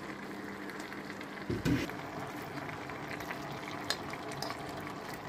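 Zucchini and vegetable stew simmering and sizzling steadily in an open frying pan. There is a brief low thump about a second and a half in, then a few light clicks and scrapes of a spoon near the end as canned stewed meat is added to the pan.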